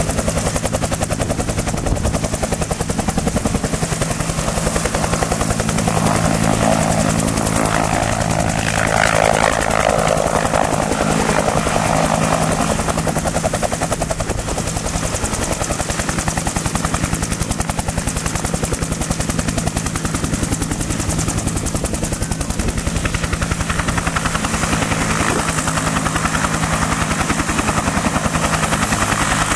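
Bell UH-1 Iroquois (Huey) helicopter running, its turboshaft engine and two-bladed rotor beating in a rapid, even, continuous rhythm.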